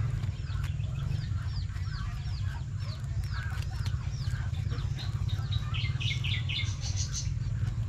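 Birds calling: a run of short, falling high chirps, about three a second, then a quick cluster of higher calls near the end. A steady low rumble runs underneath.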